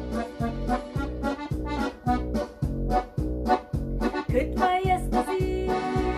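Piano accordion playing the tune over a steady, rhythmic bass-and-chord accompaniment, with an electronic keyboard joining in; a woman's singing voice comes in near the end.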